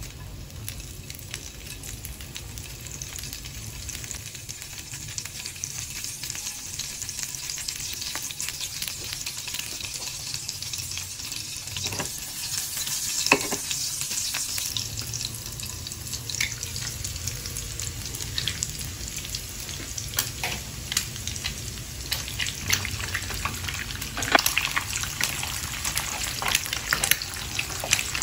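Hot oil sizzling in a frying pan, first with chopped scallions frying in it and by the end an egg. Sharp pops and crackles grow louder and more frequent about halfway through.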